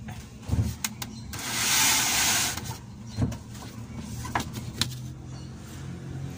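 Handling knocks and clicks, with a loud hissing rush lasting about a second near the start and a steady low hum underneath.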